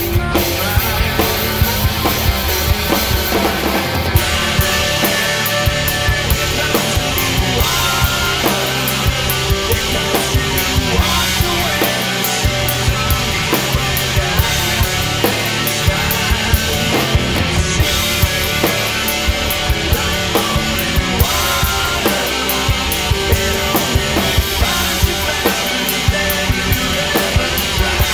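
Hard rock drumming on a DW Collector's Series kit with a DW Truecast snare and Meinl cymbals, played over a loud rock song recording: a steady, driving beat with frequent cymbal hits.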